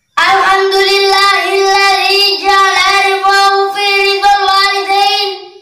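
A young boy chanting melodically in Arabic, drawing out long held notes at a nearly steady pitch, breaking off just before the end.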